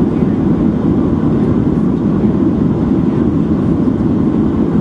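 Steady low rumble of engine and airflow noise heard inside the cabin of a Boeing 737-700 descending on approach to land with its flaps extended.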